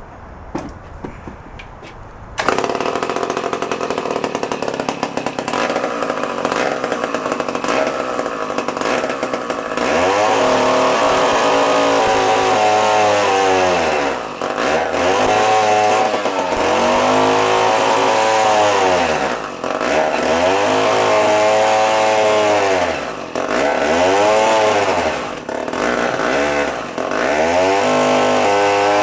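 A 1954 David Bradley chainsaw's two-stroke engine starts about two seconds in and runs loud. From about ten seconds on it is revved up and down over and over, its pitch rising and falling every couple of seconds.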